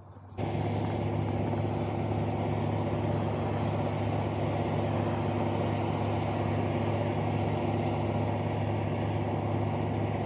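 A motor running steadily at an even speed, a low constant hum that starts about half a second in.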